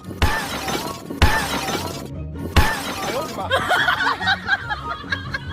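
Three shattering crash sound effects, each with a deep thump, about a second apart over background music, followed by a jumble of voices.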